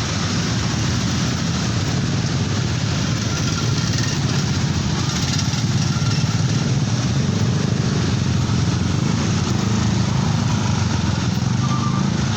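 Steady rumble of passing vehicles, loud and unbroken.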